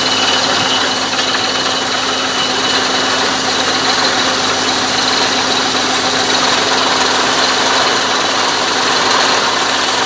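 Water-well drilling rig's engine running steadily with a constant hum, muddy water gushing up out of the borehole.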